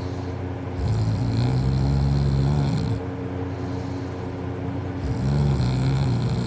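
A sleeping person snoring loudly: two long snores about four seconds apart, each a low droning tone lasting about two seconds, with quieter breathing between them.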